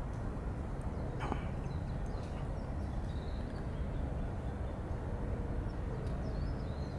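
A steady low rumble of background noise, with a few faint, high whistled bird notes, about three seconds in and again near the end.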